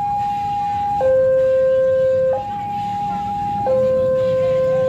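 Railway level-crossing warning alarm sounding, switching back and forth between a higher and a lower electronic tone, each held a little over a second. It is the signal that a train is approaching the crossing.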